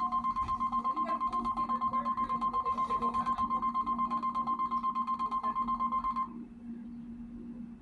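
NOAA Weather Radio 1050 Hz warning alarm tone from the radio's speaker: one steady high tone with a fast, even pulse in loudness that cuts off about six seconds in, the alert signal for a weather warning, here a tornado drill test. A low steady hum runs under it and carries on after it stops.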